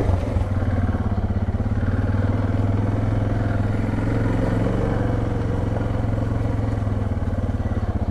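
Suzuki DR650's single-cylinder four-stroke engine running steadily under way, a fast even thumping pulse with little change in speed.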